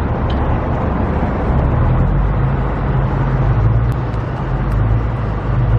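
Steady low rumble of a vehicle engine and traffic, growing stronger about a second and a half in.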